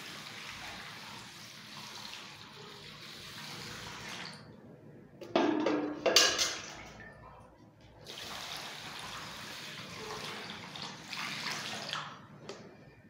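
Water pouring from a plastic jug into an aluminium bowl of washed rice, covering the rice to soak it. The pour runs for about four seconds, stops, a short louder sound comes in the pause, and then a second pour runs for about four more seconds.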